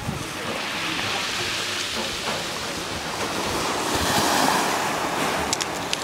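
Small sea waves breaking and washing up a pebble shore, the wash swelling about four seconds in.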